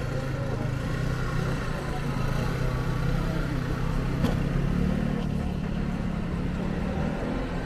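Street traffic: a motor vehicle's engine running close by with a steady low hum that rises a little about five seconds in, and one sharp click about four seconds in.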